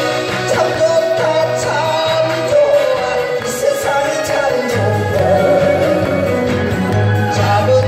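A man singing a Korean trot song into a handheld microphone over a recorded backing track, both amplified through a PA speaker. His sung line holds and bends through the first half, and the backing band's bass comes up strongly about five seconds in.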